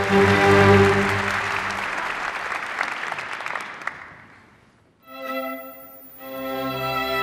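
Audience applause over a held orchestral chord, dying away over about four seconds. After a moment of near silence a string orchestra begins playing, with the low strings coming in about a second later.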